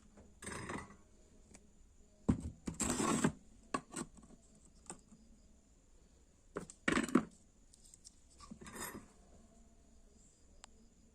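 Small clicks, clinks and short scraping or rustling noises from handling small parts and tools, in four brief bouts with quiet between them.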